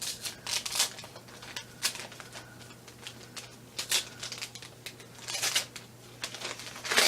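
A package being handled and opened: irregular rustling and crinkling of its wrapping, in short bursts.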